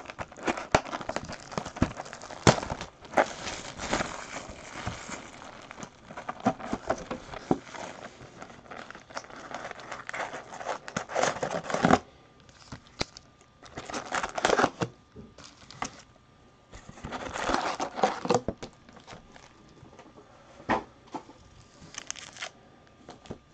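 Plastic wrapping of trading-card packs crinkling and tearing as the packs are opened by hand. The crackling is dense for about the first half, then comes in shorter bursts with pauses.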